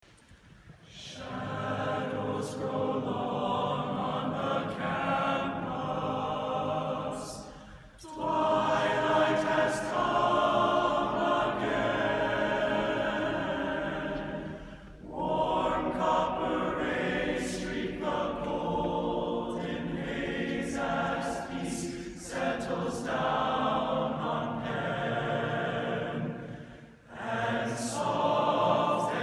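A large choir of mostly men's voices singing together in long phrases, with brief breaks between phrases about 8, 15, 22 and 27 seconds in.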